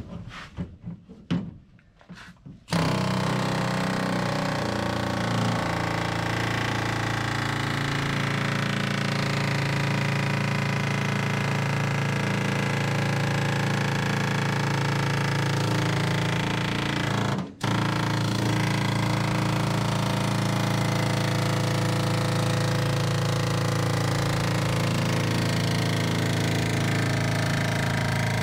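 Long-barrel pneumatic air hammer fitted with a slotted panel cutter, chiselling through the sheet-metal trunk floor: a loud, steady, rapid hammering that starts about three seconds in and runs on, with one brief break past the middle.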